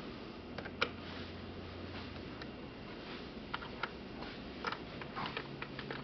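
Scattered small, sharp clicks and taps as fingers handle the plastic housing, panels and small parts of an Aqua Medic Reefdoser dosing pump, about a dozen at irregular intervals.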